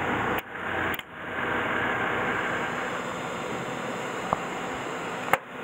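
Machinery running with a steady rushing noise, broken by brief drop-outs near the start and just before the end, with one sharp click about four seconds in.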